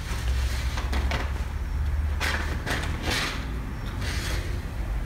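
Footsteps and handling noise from a handheld camera carried down a hallway: a few soft scuffs about half a second apart over a steady low rumble.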